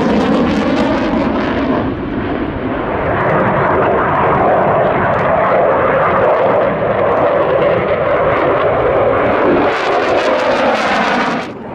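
Delta-wing jet fighter flying past with loud, steady jet engine noise. The sound changes abruptly about two seconds in and again near the end, where separate clips are joined.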